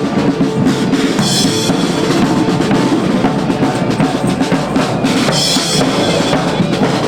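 Street band playing a steady beat on bass and snare drums, with two short, shrill high sounds about a second in and again about five seconds in.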